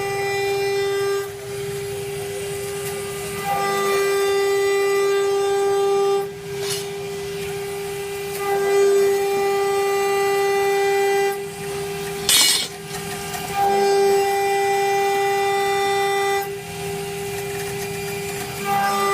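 CNC router spindle milling a 10 mm pure aluminium plate: a steady high-pitched whine with several overtones that grows louder and quieter every few seconds as the cutter works through the metal. A short burst of hissing noise comes about twelve seconds in.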